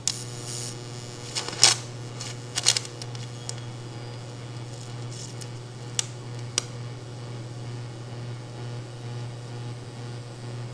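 Several sharp metal clinks and taps in the first three seconds, then two single ticks about six seconds in, over a steady low hum.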